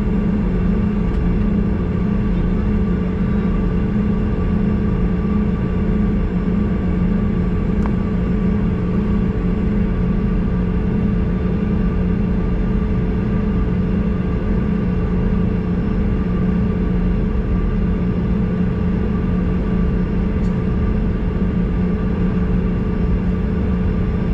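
Steady drone inside the cabin of a Bombardier CRJ-200 standing on the ramp: a continuous low rumble with several steady humming tones, unchanging throughout.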